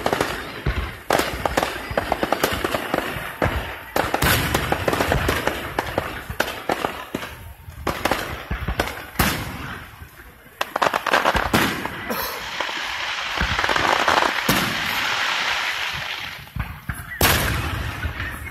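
Aerial fireworks going off in quick succession: a dense run of bangs and pops, and about two-thirds of the way through a steady crackling hiss that lasts around four seconds.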